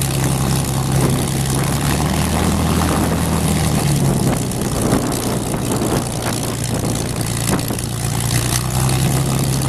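Supermarine Spitfire Mk.XVI's Packard-built Merlin V12 engine running at low power with the propeller turning, a steady low note that weakens somewhat from about four seconds in and comes back near the end.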